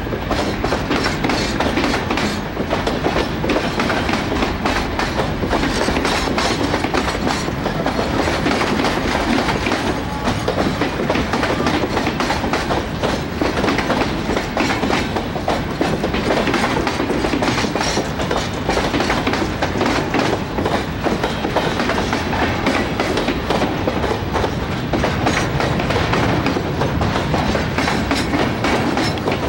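Freight train wagons, covered hoppers and container cars, rolling steadily past, their wheels making a continuous run of clickety-clack over the rail joints.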